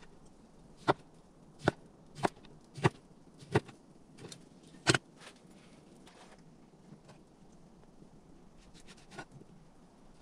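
Six sharp knocks, about two-thirds of a second apart, over the first five seconds, then quieter with a few faint ticks near the end.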